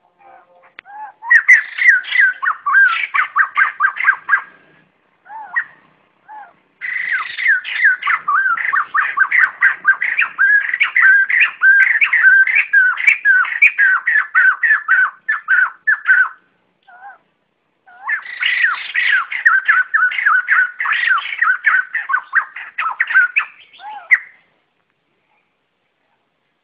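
White-crested laughingthrushes (bồ chao) giving their flock call: three long bouts of rapid, repeated notes with short pauses between them.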